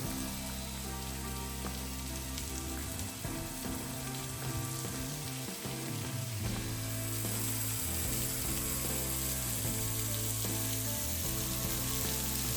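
Background music of sustained low notes that change every second or two, over a steady crackling hiss of falling water and drips from a light waterfall.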